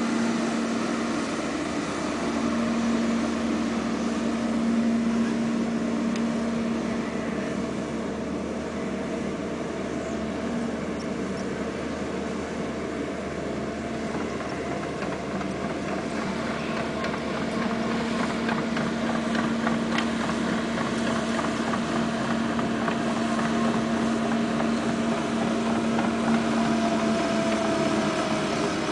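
Liebherr crawler excavator's diesel engine running steadily under working load, a constant low hum with hydraulic noise over it as the boom lifts and swings a heavy load.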